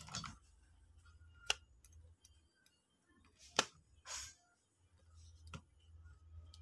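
Hands handling an amplifier circuit board and its parts: a few sharp clicks and taps, the loudest about halfway through, then a short rustle, over a faint low hum.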